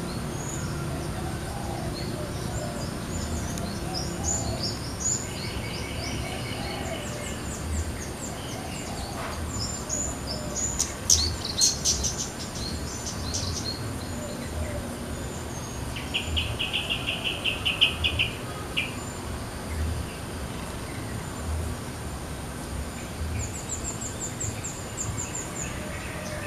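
Several small birds chirping and trilling in the trees, with a cluster of bright high chirps around the middle and a rapid, even trill about two-thirds of the way through.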